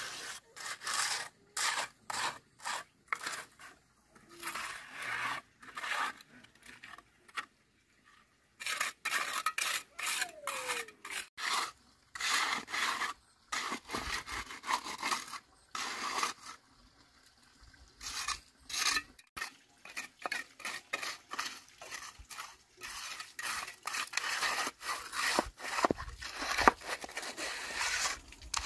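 Repeated rasping strokes of a hand tool working a surface, roughly two a second, in runs broken by short pauses.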